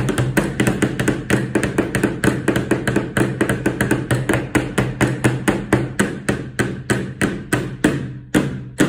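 Rapid, even tapping at about five taps a second: marker pens struck on a tabletop like drumsticks, playing rhythmic figures, over a steady low tone.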